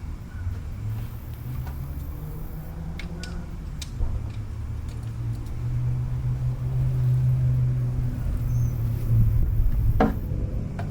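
A low engine rumble that shifts in pitch and grows louder, with a few light clicks and a sharper knock near the end.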